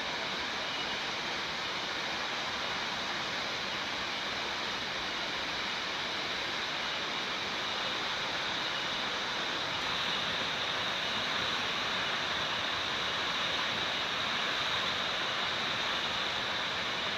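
Waterfall: water rushing and splashing in a steady, even noise.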